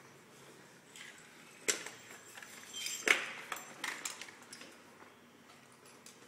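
SCBA air pack being lifted off the floor and swung onto the wearer's back, its harness buckles and metal fittings clinking and knocking. There is a sharp knock just under two seconds in, a louder one about three seconds in, and smaller clinks after it.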